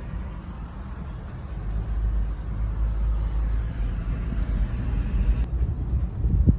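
Low rumble of a vehicle driving along the beach, growing louder about a second and a half in.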